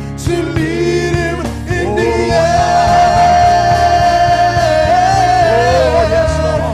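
Gospel song with band accompaniment and singing, a long held note with vibrato through the middle.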